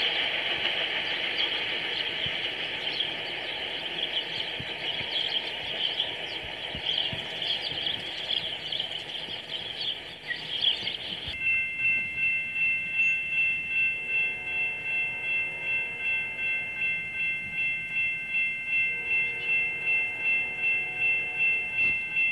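Freight cars rolling past on the rails with a steady rush and a high wheel screech. About eleven seconds in, the sound changes abruptly to a grade-crossing warning bell ringing steadily about twice a second.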